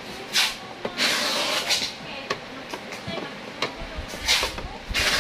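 Hands fitting parts back onto an Epson LX-310 dot-matrix printer: irregular clicks and knocks mixed with short scraping rubs. A low rumble joins about four seconds in.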